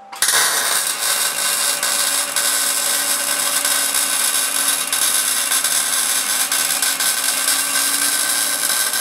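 Wire-feed welder arc welding a seam, the gun drawn along at constant speed by a linear actuator: a steady, loud crackle and sizzle with a steady hum under it, starting abruptly just after the start.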